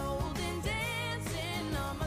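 Background pop song with a sung vocal melody over a steady beat.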